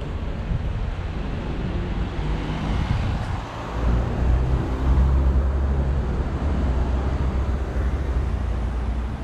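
Street traffic: a vehicle goes by, then from about four seconds in a nearby engine runs with a steady low hum.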